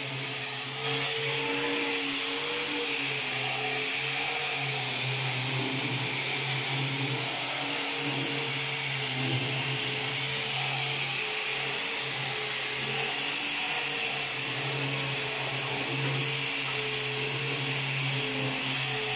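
Small handheld electric disc sander running continuously against wood: a steady motor whine that wavers slightly as it is pressed into the work, over a grinding hiss. It gets louder about a second in.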